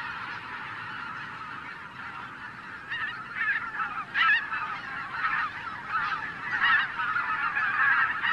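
A large flock of wild geese calling: a steady din of many overlapping honks, with louder single calls standing out from about three seconds in.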